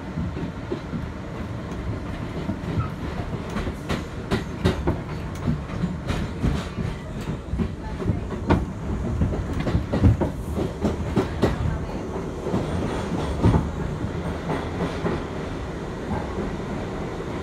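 R62A subway train running on the rails, its wheels clicking and clacking over rail joints with a run of sharp clicks through the middle, over a steady rumble heard from inside the car.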